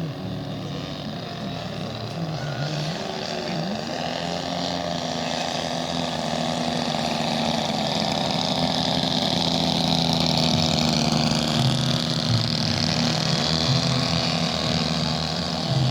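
Engine of a radio-controlled model airplane running steadily in flight, with a high-pitched whine, growing louder over the first half as the plane comes closer, then holding.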